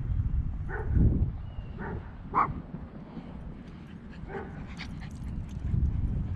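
Yorkshire terrier giving about five short, high-pitched yips and barks spread over several seconds, the loudest about two and a half seconds in.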